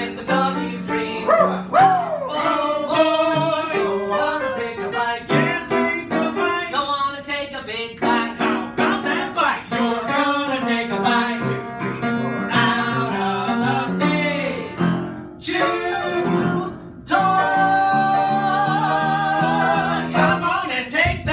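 Men singing a show tune with piano accompaniment, ending on a long held note with vibrato that stops near the end.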